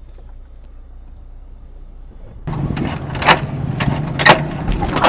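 Low steady rumble of a vehicle running. About two and a half seconds in it cuts abruptly to a louder steady hum with several sharp knocks and clatters, like doors or metal being handled.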